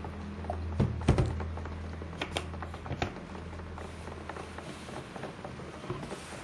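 A spoon stirring a thick baking soda mixture in a container, giving scattered clicks and knocks that are loudest about a second in. A low steady hum underneath stops about two-thirds of the way through.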